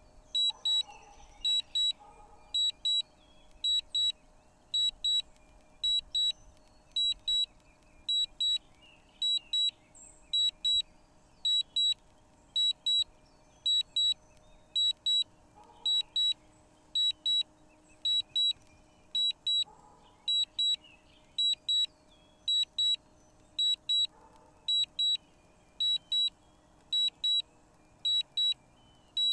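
Drone controller warning alert: short high double beeps repeating steadily, about three pairs every two seconds, the kind of alarm the flight app sounds for a warning such as strong wind.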